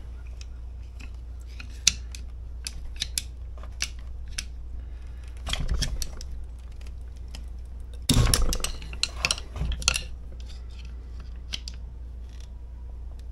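Metal tool clinking and scraping against a tractor hydraulic pump housing in an attempt to pry its halves apart: scattered sharp clicks, a scraping burst about five and a half seconds in, and a louder, longer one about eight seconds in.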